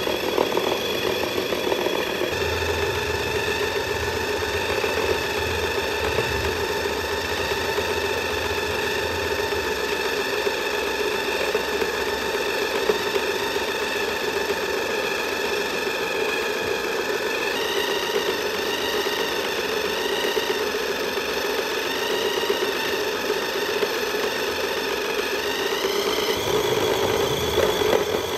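Small electric motor and gearbox of a toy 1:12-scale RC Porsche Cayenne whining steadily at full throttle as its wheels spin in place in a burnout. The pitch starts to waver about two-thirds of the way in and rises near the end.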